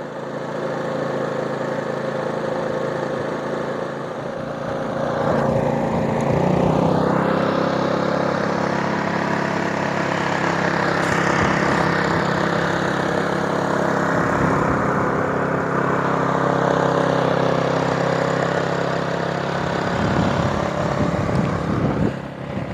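AIMS 3200-watt inverter generator's four-stroke OHV engine running steadily in eco mode, an even hum. It grows somewhat louder about five seconds in.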